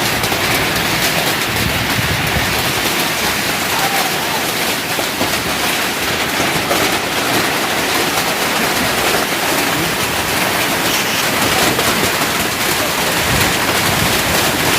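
Heavy hailstorm: a loud, steady, dense clatter of hailstones and rain striking hard surfaces.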